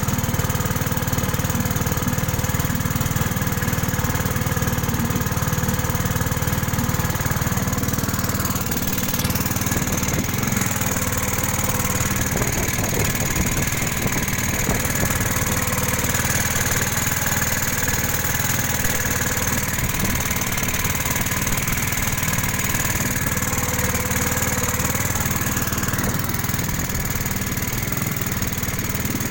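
Pump boat's engine running steadily while under way, with water rushing along the hull.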